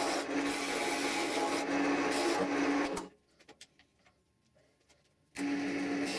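Wood lathe running with a steady motor hum while a turning tool cuts a soft, punky wood block spinning between centers. The sound cuts out abruptly about three seconds in and comes back about two seconds later.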